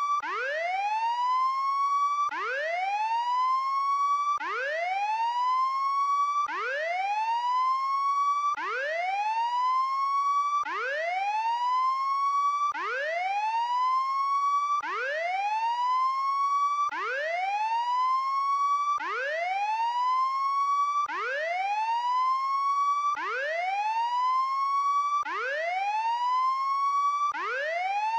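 Electronic whooping prison break-out alarm: a tone sweeps quickly up from low and levels off high, then cuts back to the bottom. The whoop repeats evenly about every two seconds.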